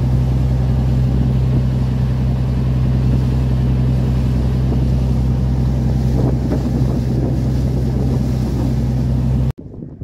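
Small boat's engine running steadily under way, a loud low drone with water rushing and splashing along the hull and wind on the microphone. It cuts off suddenly near the end.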